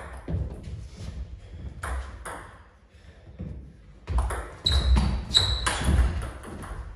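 Table tennis ball clicking off bats and table: a few separate taps in the first seconds, then a fast rally of quick knocks starting about four seconds in.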